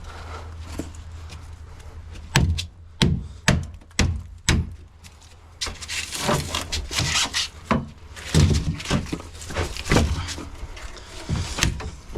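Knocks, thunks and scraping rubs from a fridge's plastic-and-foam cabinet being worked apart to get at its copper pipe. A run of sharp knocks comes first, then a stretch of scraping, then more knocks.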